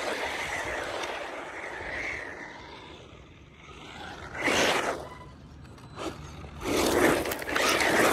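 A 1/10 brushless RC sand buggy tearing across loose gravel, its tyres scraping and spraying stones. The sound fades as it drives away, comes back in a short burst about halfway through, and is loud again as the buggy comes close near the end.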